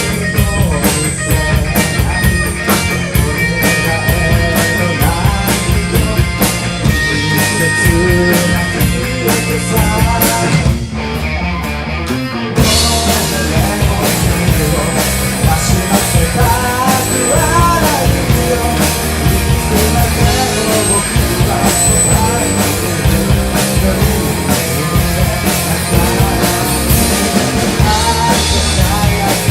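Rock band playing, with drum kit and guitar; the music thins out briefly about eleven seconds in, then comes back louder with a moving melodic line over it.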